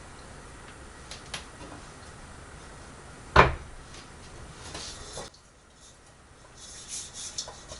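Kitchen handling sounds: a few small clicks, then one sharp knock a little before halfway, of the kind a cupboard door makes shutting, followed by some rustling and light clatter near the end.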